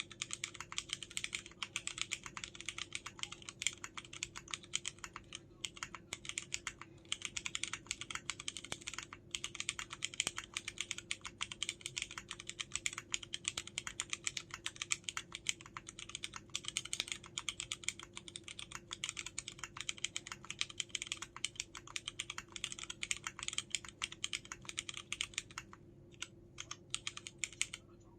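Continuous fast typing on a KMG B60 mechanical keyboard with tactile Cherry MX Brown switches and DCS Sleeper keycaps: a dense run of key clacks, broken by a few short pauses.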